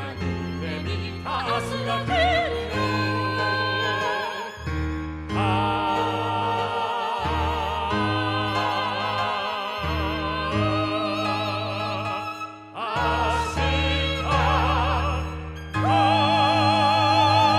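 Singers holding long notes with wide vibrato over piano, violin and double bass, the bass line moving every couple of seconds. About 16 seconds in they swell into a loud sustained final chord.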